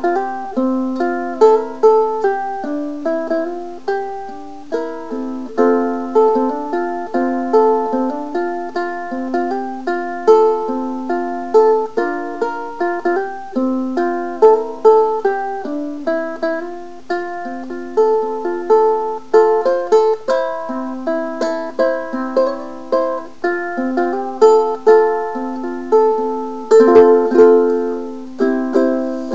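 BugsGear Cigarbox PCCBA-10 acoustic cigar-box ukulele played solo, a plucked melody over chords with clear note attacks and ringing decays. A brief knock on the instrument sounds shortly before the end.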